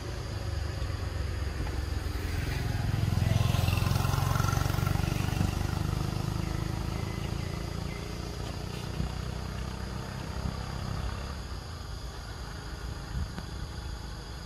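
A motor vehicle passes by, unseen: its low engine and road noise swells over the first few seconds, peaks about four seconds in and fades away. A steady high hum of insects runs underneath.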